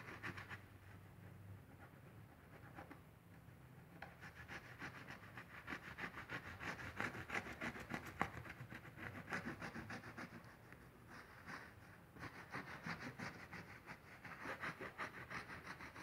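Cloth rag scrubbing over a grouted stained-glass mosaic in quick back-and-forth strokes, wiping the grout residue off the glass. The strokes are faint at first and become steadier and louder a few seconds in.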